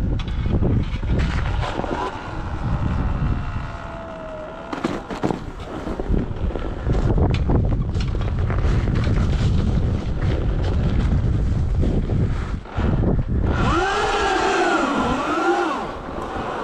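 Wind buffeting the microphone over the rumble of tyres rolling across pavement and packed snow, with a few knocks and jolts. Near the end comes a wavering pitched squeal for about two seconds.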